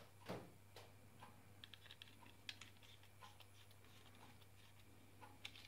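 Faint, scattered small clicks and ticks from a small screwdriver driving screws back into the plastic underside of a Logitech M705 wireless mouse, the plastic case being handled.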